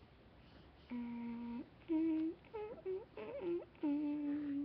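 A boy humming a few notes: a low held note about a second in, then higher notes with short slides in pitch between them, and a longer held note near the end.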